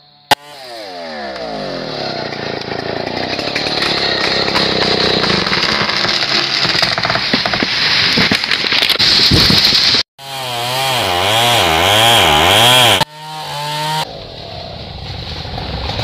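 Stihl 070 two-stroke chainsaw running at high revs, in several short clips joined by abrupt cuts. In one clip the throttle is revved up and down about four times in quick succession.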